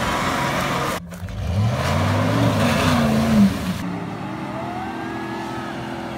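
Off-road 4x4 engine running steadily under load. It breaks off suddenly about a second in, and another 4x4's engine revs up hard and falls back as it churns with spinning wheels through deep mud, then settles to a lower, steadier note.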